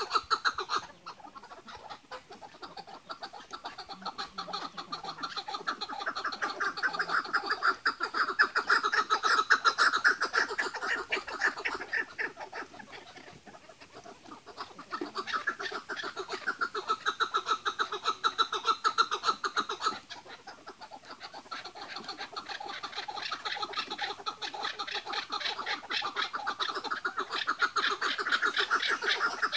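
Several caged chukar partridges calling against each other in fast chattering runs (the hıngırma call), swelling and fading in three long waves with short lulls between: the rival calling of a partridge calling contest.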